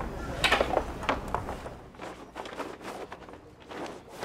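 A new mainsail being hoisted by hand: sailcloth rustling, with irregular clicks and knocks from the sail and its fittings at the mast, the loudest cluster about half a second in.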